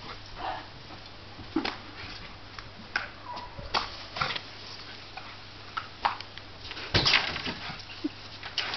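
A balloon being bumped back up again and again by a collie's nose and paws, as a string of short irregular taps, the loudest about seven seconds in.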